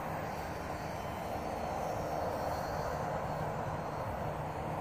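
Electric motor and propeller of a small model airplane flying overhead, a steady drone.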